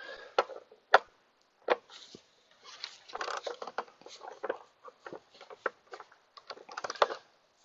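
Sharp clicks followed by light irregular clicking and rustling: small engine parts and hand tools being handled during repair.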